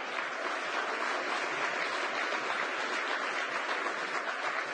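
Audience applause: many hands clapping in a steady, even patter.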